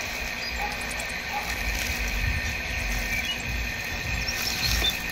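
Outdoor garden ambience: a steady high insect drone, with scattered short bird chirps and a low irregular rumble underneath.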